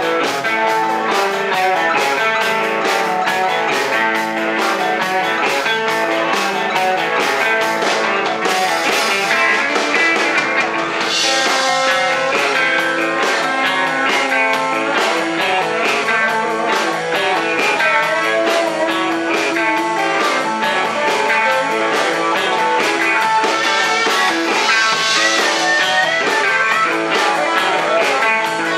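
Live rock band playing an instrumental passage: two electric guitars over a steady drum beat, with no singing.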